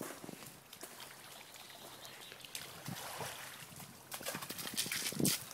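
Shallow lake water splashing and trickling as a springer spaniel puppy wades at the shore, with short splashes that get louder for about a second near the end.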